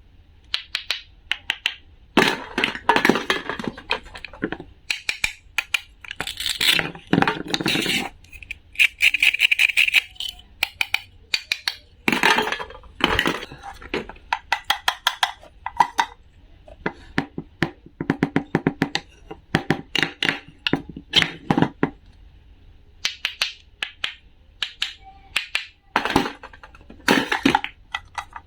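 Rapid runs of clicks, taps and crackles from small hard objects being handled, cut and dropped, coming in bursts of a second or two with short pauses between them.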